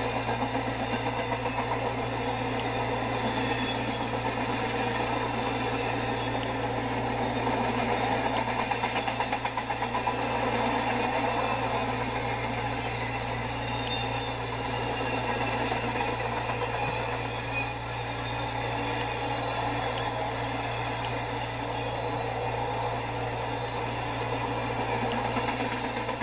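Double-stack intermodal container cars of a freight train rolling past, a steady noise of steel wheels running on the rails.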